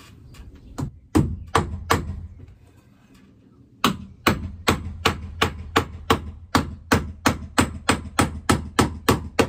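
Hammer nailing a wooden trim strip overhead. There are four blows, a short pause, then a quick, even run of about three blows a second.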